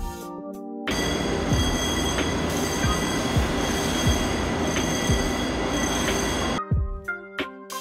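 Electric fire alarm bell ringing continuously, a loud metallic clangour with steady high tones, over background music with a steady beat. It starts about a second in and cuts off suddenly near the end.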